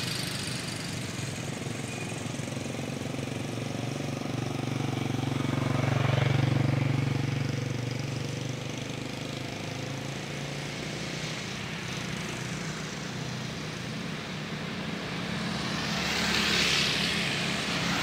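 Road traffic: a steady engine hum, swelling as vehicles pass, one about six seconds in and another near the end.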